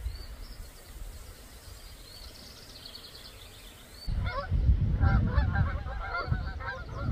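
A few faint high songbird chirps, then, about four seconds in, a flock of geese starts honking overhead: many short calls overlapping. A low wind rumble on the microphone comes in with the honking.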